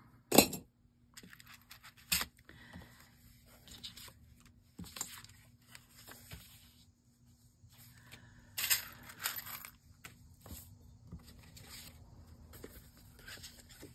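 Paper and card pieces being handled and shuffled on a craft table, rustling and sliding, with a sharp tap about half a second in and another about two seconds in, and a louder spell of rustling past the middle.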